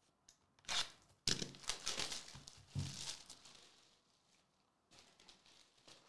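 Trading-card hobby box being torn open: a sharp rip, then a couple of seconds of tearing and crinkling of cardboard and wrap that dies away about three seconds in, with fainter rustling near the end.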